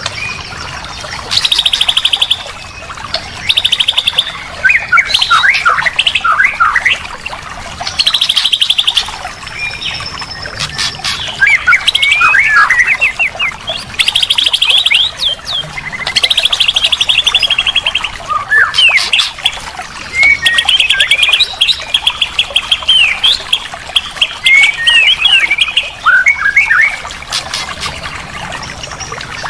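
White-rumped shama (murai batu) song of the kind used as a masteran recording for training caged birds: loud phrases of rapid trills alternating with quick sweeping whistled notes, every few seconds.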